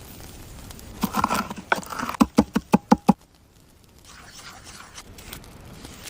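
A quick run of sharp knocks, ending in about six evenly spaced strokes in under a second, then stopping abruptly.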